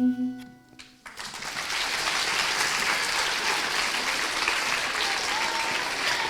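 A held musical note fades out at the start, then an audience breaks into steady applause from about a second in.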